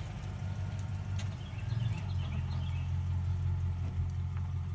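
An engine idling steadily with a low, even hum. Faint high chirps come and go about two seconds in.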